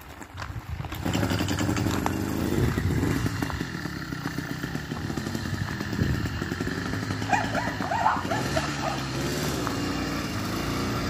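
80cc two-stroke bicycle engine kit catching about a second in as it is bump-started by pedalling and releasing the clutch, then running with the revs rising and falling under the throttle.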